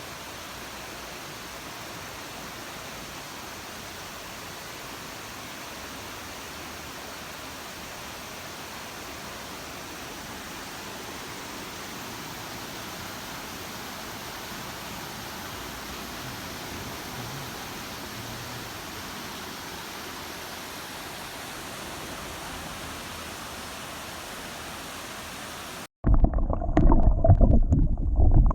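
Steady, even rush of flowing river water. Near the end it cuts suddenly to a much louder, irregular low rumbling.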